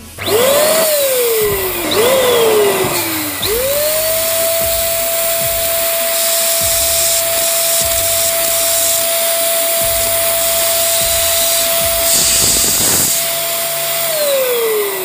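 Electric balloon inflator's motor switched on by pressing down its nozzle: two short starts that wind down again, then it runs steady with a high whine and rushing air for about ten seconds before winding down near the end.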